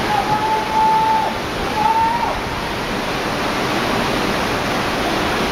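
Tsunami floodwater rushing through a street in a steady, loud torrent. A thin held tone sounds over it twice in the first couple of seconds.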